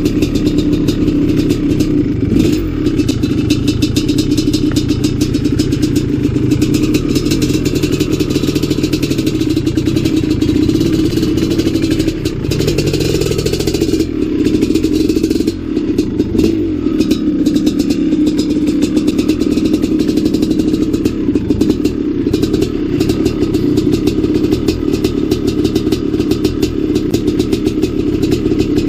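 Maico 700's big single-cylinder two-stroke engine running at low speed on a dirt bike, the engine note rising and falling about halfway through as the throttle is worked. Frequent rattles and knocks come from the bike over rough ground.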